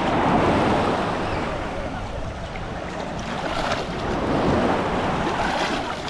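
Sea waves surging and washing onto the shore, swelling about half a second in and again around four and a half seconds. Wind buffets the microphone.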